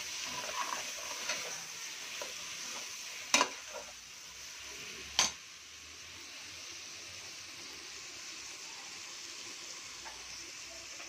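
Mutton pieces sizzling in oil with onion-tomato masala in a pressure cooker while a spatula stirs and scrapes them. Two sharp knocks of the spatula against the pot come about three and five seconds in, the loudest sounds, and the sizzle then carries on more softly.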